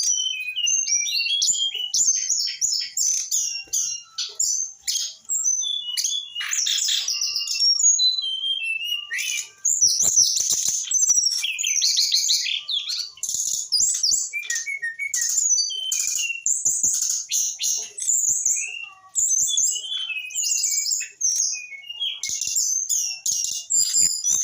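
Brown-chested jungle flycatcher singing a long, rapid, varied song of high chirps and whistled notes, with only brief pauses.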